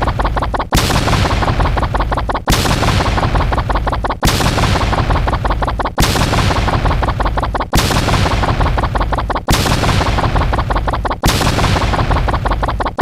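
A loud sound effect: the same burst repeated seven times, about every 1.75 seconds, each cutting in sharply with a fast crackle and dying away before the next.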